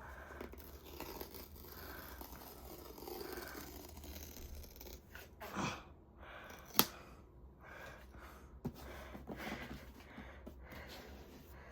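The cardboard box and its paper packaging being handled: faint paper rustling and scraping, with a soft knock about five and a half seconds in and a sharp tap a second later.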